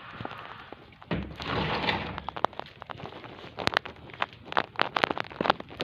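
A dull thump with a short rush of noise about a second in, followed by a run of irregular sharp knocks and clicks.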